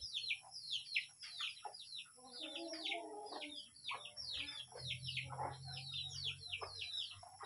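Birds chirping in a busy, continuous run of short, high peeps, several a second, each sliding quickly downward in pitch.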